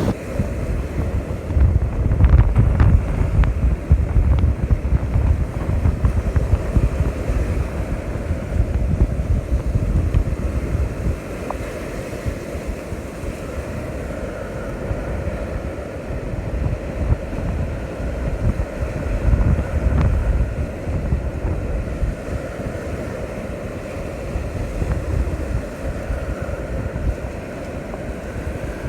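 Wind buffeting the microphone in gusts over the steady wash of surf on the beach, the gusts strongest in the first ten seconds or so.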